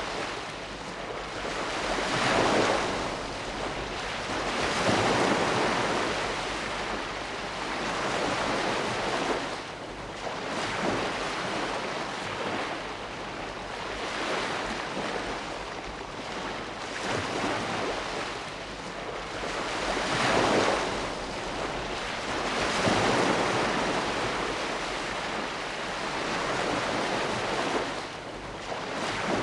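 Sea waves breaking and washing ashore, a steady rush that swells louder every few seconds as each wave comes in.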